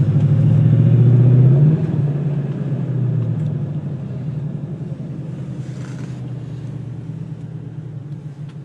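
2002 Mustang GT's V8 engine running. It is loudest at first, drops about two seconds in, and then fades slowly.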